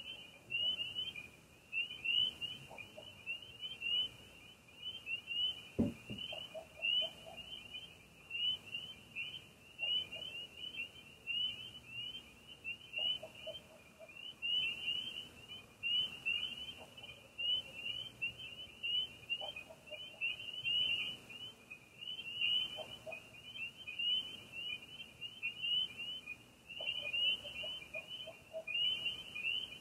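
Night chorus of crickets and frogs: a dense, steady stream of high chirps, with shorter, lower calls every few seconds. There is one sharp knock about six seconds in.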